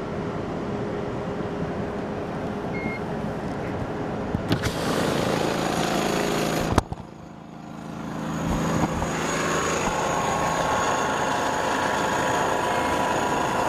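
Steady running noise of a vehicle heard from inside. It grows louder about four and a half seconds in, then a sharp click and a sudden drop come about seven seconds in, after which the steady noise builds back up with a faint high whine.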